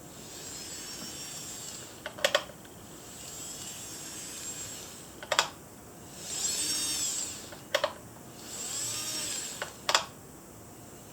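Hands handling plastic model-train packaging: hissy sliding and rubbing broken by four sharp clicks, about every two to three seconds.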